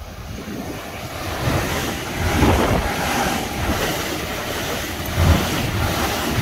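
Double-deck electric passenger train passing close by: a rushing of wheels on rails that builds over the first two seconds and then holds, with a couple of low thumps from the wheels. Wind is buffeting the microphone.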